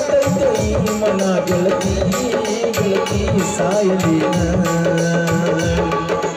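Live song: a male singer into a microphone over keyboard and a hand-played barrel drum keeping a steady beat.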